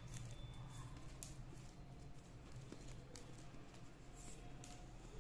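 Faint rustling and a few light ticks of plastic craft wire strands being handled and pulled into a knot, over a steady low hum.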